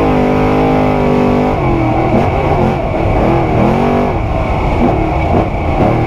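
Trophy Truck's 900 hp engine heard from inside the cab. It holds a steady high note for about a second and a half, then runs rougher, its revs swinging up and down with the throttle.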